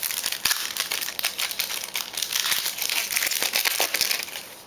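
Wrapper of a trading-card pack being torn open and crumpled by hand, a dense crinkling that eases off near the end.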